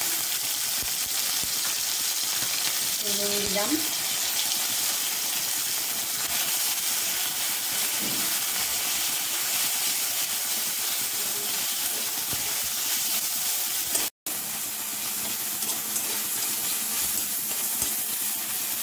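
Fresh chhana (cottage cheese) frying in a little oil in a steel kadai: a steady sizzle as its moisture cooks off, with a spatula stirring and breaking it up in the pan. The sound drops out for an instant about 14 seconds in.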